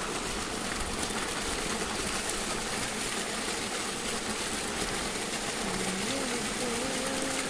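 Electric irrigation water pump running steadily, its motor hum mixed with the rush of water from the outlet pipe.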